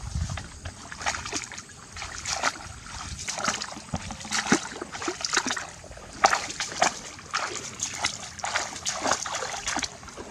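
Water splashing and sloshing again and again in irregular bursts, as in shallow water being worked through.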